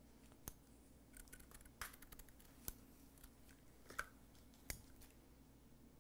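Kitchen scissors snipping a fabric ribbon: a few faint, sharp clicks of the blades, irregularly spaced.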